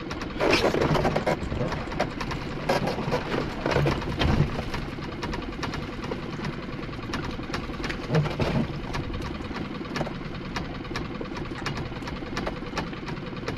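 Small boat's engine running steadily with an even rapid ticking, under a few louder clattering knocks as a wet lobster pot is hauled over the side and onto the deck, the loudest about half a second in.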